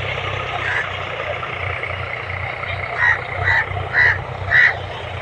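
A crow cawing four times in quick succession, starting about three seconds in, over a steady low hum.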